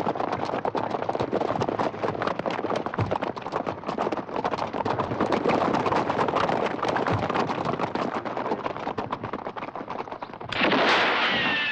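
Horse and covered wagon at a gallop: a dense, rapid clatter of hoofbeats and sharp cracks. About ten seconds in, a louder sound starts that slides down in pitch.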